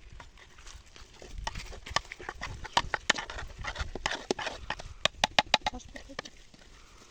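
A series of sharp, irregular clicks and knocks, with a quick run of them about five seconds in.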